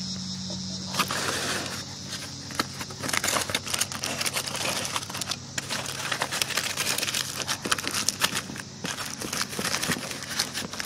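Aluminium foil crinkling and rustling in the hands as it is unwrapped and handled, starting about a second in, over a steady chirring of crickets.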